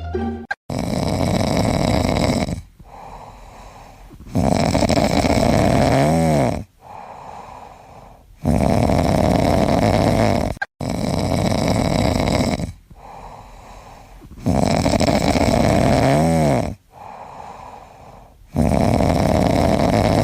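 A sleeping pet snoring loudly in a slow rhythm, with long snores about every four seconds and quieter breaths between them. A couple of the snores end in a short whistling whine.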